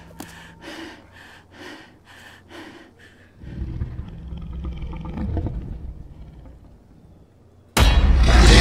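Horror-film soundtrack: a woman's heavy, rhythmic breathing about twice a second, then a low rumbling drone that swells and fades. Near the end comes a sudden, very loud jump-scare burst with a roaring cry that falls in pitch, as a masked monster appears.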